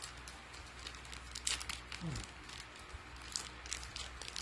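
Snack-bar wrappers crinkling and crackling as they are opened by hand, in many short, irregular crackles.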